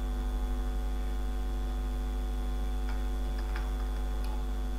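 Steady low electrical mains hum with faint fixed tones on the recording, and a few faint clicks about three seconds in.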